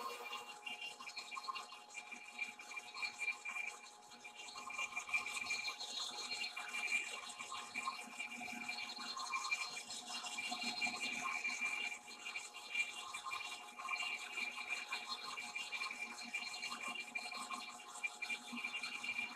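Big Monarch engine lathe turning a trommel trunnion wheel while a CNMG indexable insert takes a light truing cut: a steady machine whine with an irregular scratchy crackle of the cut running through it.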